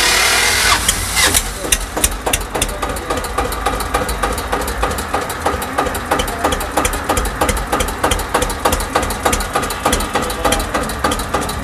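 Eicher 241 tractor's single-cylinder diesel engine starting on its electric starter and catching within the first second. It then idles steadily, each firing stroke a sharp, regular knock.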